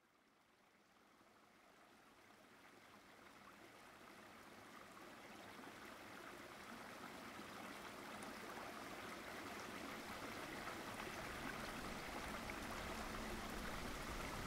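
Water of a rocky stream running, a steady rushing sound that fades in gradually from near silence.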